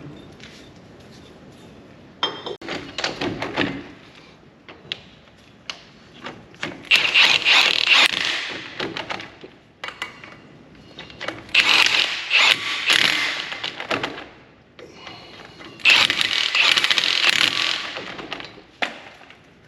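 Hand tools working on a brake caliper: scattered clinks and knocks, with three longer rasping, clicking stretches of two to three seconds each.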